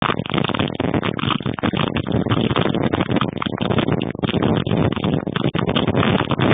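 Severe thunderstorm wind and rain: a loud, continuous rushing noise that flickers and surges with the gusts.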